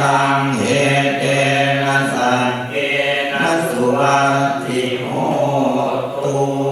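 Thai Buddhist Pali chanting: voices reciting paritta verses on one steady low pitch, in held phrases with short breaks between them.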